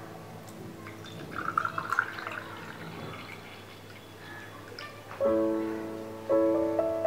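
A milky drink poured in a thin stream into a glass tumbler, splashing irregularly as the glass fills. Piano music comes back in about five seconds in, louder than the pour.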